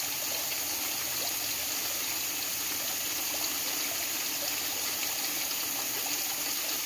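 Steady running water, an even flow with no breaks.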